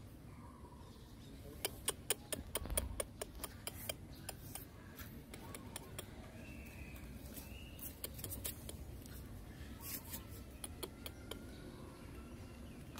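Puppies moving about on a tiled floor by metal bowls: a quick run of light clicks and taps about two seconds in, more around ten seconds, and a faint brief high whine about six seconds in.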